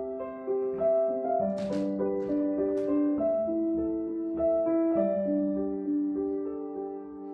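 Background piano music: a slow melody of held notes.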